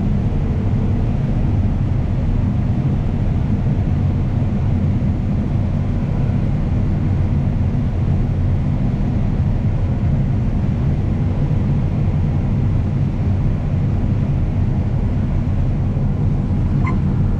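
Combine harvester running steadily while cutting corn: a continuous low engine drone.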